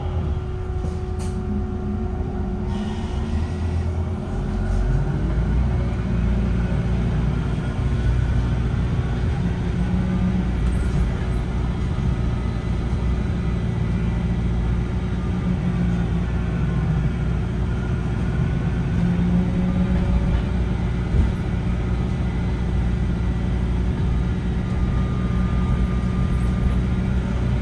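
VDL Citea SLFA-180 Hybrid bus, with its Cummins ISB5.6 diesel and electric hybrid drive, running steadily with a heavy low rumble. A steady hum sits over the rumble, and faint whines slowly rise and fall in pitch.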